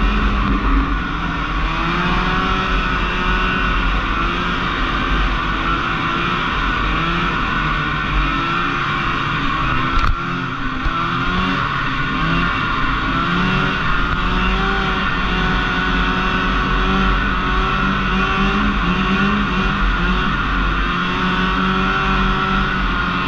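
Snowmobile engine heard from on board, its pitch rising and falling again and again as the throttle is worked. One sharp knock about ten seconds in.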